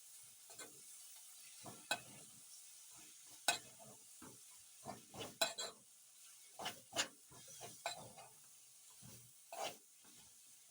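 A spoon stirring and scraping food in a cooking pot, with irregular clinks and scrapes against the pot, over a faint steady sizzle of frying.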